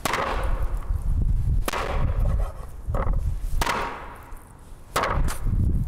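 Kitchen knife chopping and cutting through bone-in meat on a wooden cutting board: about six sharp knocks, irregularly spaced, over a steady low rumble.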